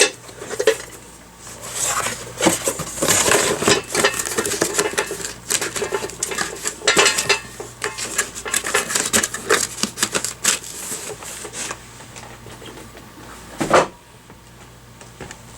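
Clattering and rustling of parts and packaging being handled and set down during unpacking: many light, irregular clinks and knocks, with one louder knock near the end.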